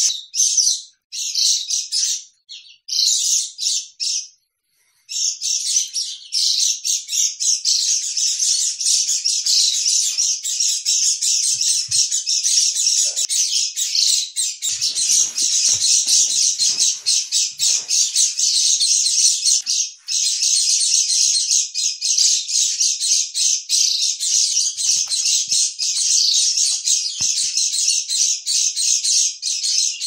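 White-eyes (pleci) chirping and twittering in rapid, high-pitched notes, a lure call used to draw in wild white-eyes. The calls break off briefly a few times in the first five seconds, then run on without pause.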